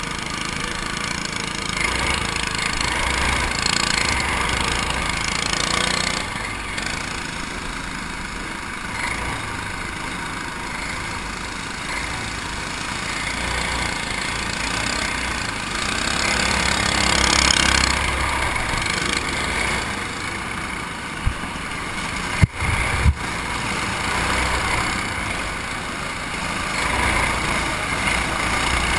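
Racing kart engine heard onboard under racing load, its roar rising and falling with the throttle through the turns, mixed with the engines of the karts around it and rushing air. A few sharp knocks sound about three-quarters of the way through.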